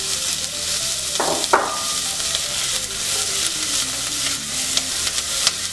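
Diced carrots, onions and garlic sizzling in oil in a non-stick saucepan while a plastic spatula stirs them, scraping and tapping against the pan, with one louder scrape about a second and a half in.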